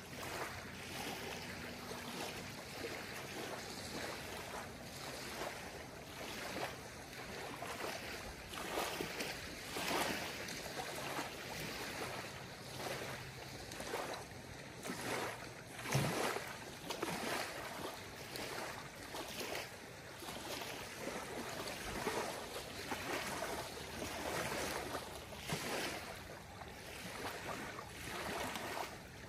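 Small lake waves lapping on a gravel shore in soft, irregular washes every second or two, with one sharper slap a little past halfway.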